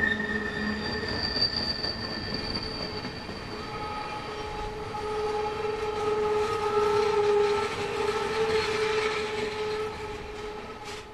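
Steel wheels of intermodal flatcars carrying highway trailers squealing in several steady high tones as the train rolls through a curve, over the rumble of the passing cars. The sound drops away near the end as the last car goes by.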